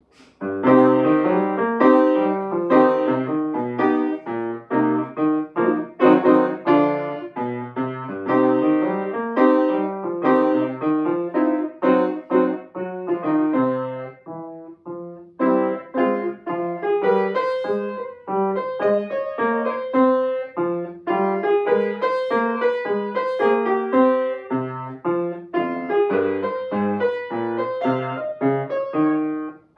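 Solo acoustic grand piano playing a piece of many quick, separately struck notes. It drops away briefly about halfway through, then resumes.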